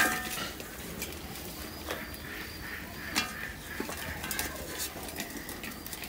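Green bean pods rustling in a cane basket and being dropped into a metal bowl: a sharp clink with a short ring right at the start, then scattered light clicks and rustles.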